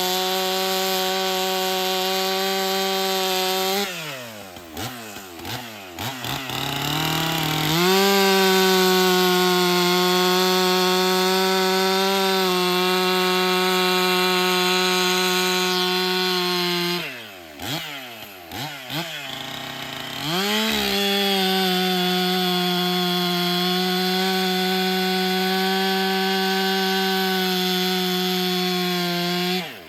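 Stihl MS 400 C two-stroke chainsaw with a 20-inch bar cutting through firewood logs at full throttle. The engine falls back to idle twice, about four seconds in and again past the middle, and revs back up into the next cut each time, dropping off again at the very end.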